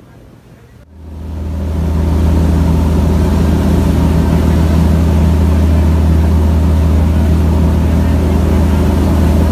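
Fishing boat's engine running at a steady speed: a loud, even low hum that comes in about a second in and holds.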